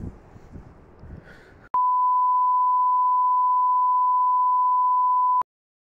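A single steady electronic beep tone, one unchanging pitch held for nearly four seconds. It starts abruptly about two seconds in, after faint background noise with a few soft knocks, and cuts off suddenly into dead silence.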